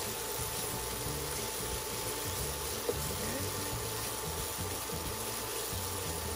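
Chopped onion and garlic sizzling steadily in hot olive oil in a frying pan as they are stirred with tongs, with a single sharp click about three seconds in.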